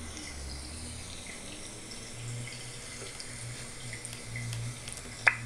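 Steady low hum and faint hiss, with scattered light taps and one sharper click near the end, as a kitten paws at a laptop's screen and keys.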